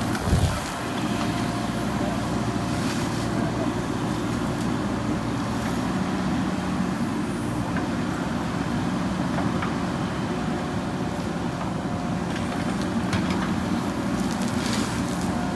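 JCB backhoe loader's diesel engine running steadily, with a single low thump about half a second in.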